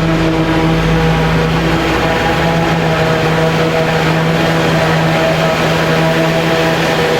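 Heavy farm diesel engine running steadily at constant speed under work load, a steady hum with even overtones over mechanical noise.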